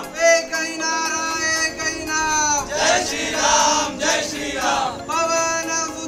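Hindu devotional chanting by male voices in unison: long held, sung notes that fall away at the end of each phrase, several phrases in a row.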